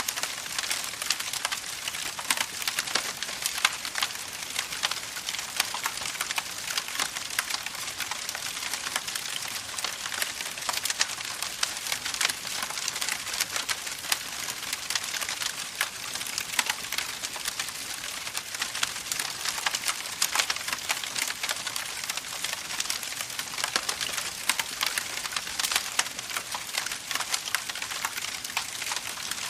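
Campfire crackling steadily: a dense stream of small, sharp snaps over a continuous hiss.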